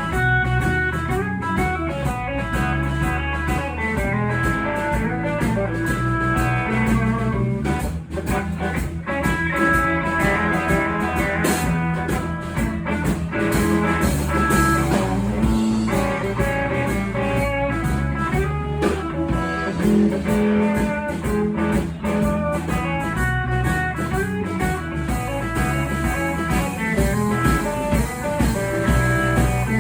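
A live band playing an instrumental blues-rock passage, led by guitar over a steady drum beat.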